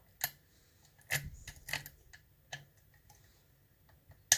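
Sharp metallic clicks and taps of a lock-picking hook and tension wrench working the pins of a six-pin Sargent pin-tumbler lock. About seven clicks come at irregular intervals, with the loudest near the end.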